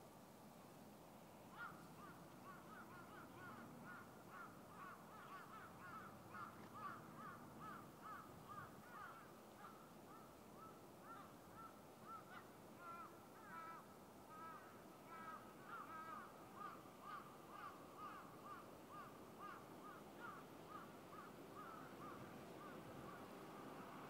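Faint animal calls, short and evenly repeated about twice a second for some twenty seconds, over a steady low background hum.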